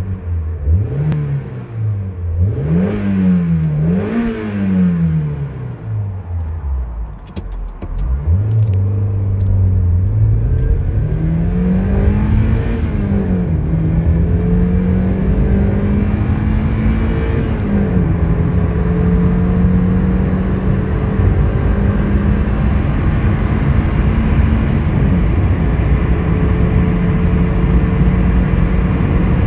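Mazda MX-5 Mk2's 1.6-litre four-cylinder engine, heard from inside the cabin under hard acceleration. It revs up and down quickly a few times, then pulls away and climbs through the gears. The revs rise steadily in each gear and drop sharply at three upshifts.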